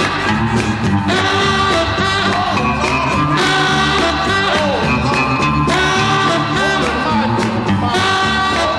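Music: a song with a sung vocal over a steady beat.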